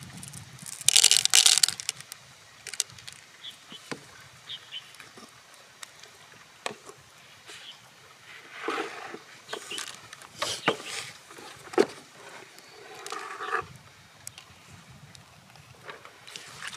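Gloved hands handling freshwater pearls in an open mussel shell: sharp clicks of pearls against the shell and rustling of plastic gloves, with a loud rustling burst about a second in and more bursts later.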